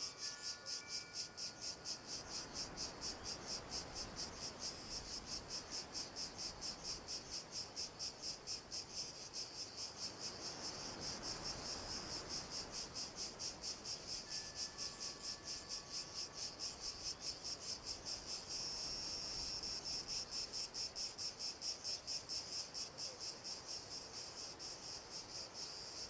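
A cricket chirping steadily and high-pitched, about three chirps a second.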